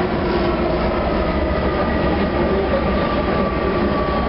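Interior running noise of a TTC H6 subway car in motion: a steady rumble and rush with a faint high whine.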